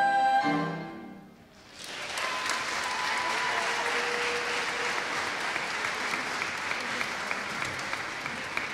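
A small vocal ensemble's final held chord cuts off about half a second in; after a brief hush, an audience breaks into steady applause.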